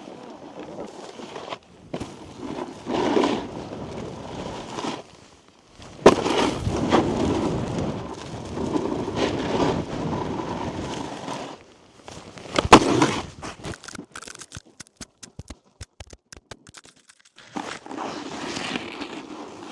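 Snowboard riding over packed snow: the board scraping and hissing with wind on the microphone, broken by two sharp impacts, one about six seconds in and a louder one near thirteen seconds, followed by a few seconds of scattered clicks before the scraping resumes.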